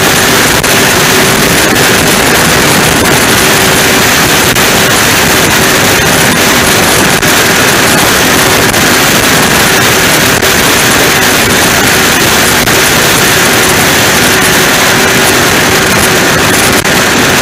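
Offshore powerboat's engines running steadily: a loud, even noise with a low steady hum under it, with no change in pace.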